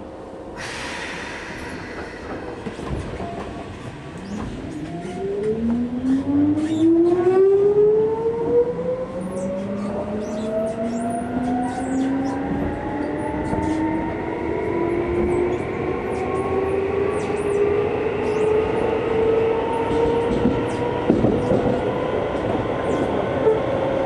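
Keisei 3400-series electric train pulling away from a station, heard from inside the carriage: a short hiss of air near the start, then the traction motor whine rising steadily in pitch as the train accelerates, with the wheels clicking over the rail joints.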